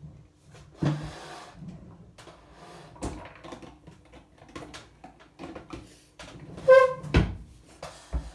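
Makeup products and cases being picked up and handled: irregular rustling, clicks and small knocks. A brief pitched tone a little before seven seconds in is the loudest sound, followed by a sharp knock and another near the end.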